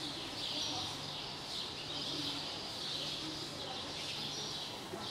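Ambient chatter of many small birds chirping continuously, over faint distant human voices and a low steady hum.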